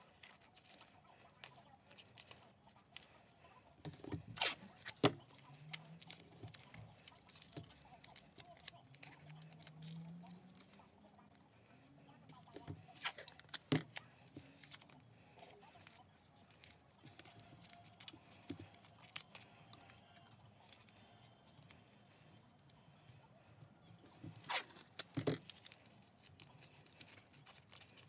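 Blue painter's tape being pulled off the roll, torn and pressed around a malleable-iron G clamp's screw and handle to mask them, with small crackles and rustles of the tape. A few sharper knocks of the metal clamp being handled come through now and then.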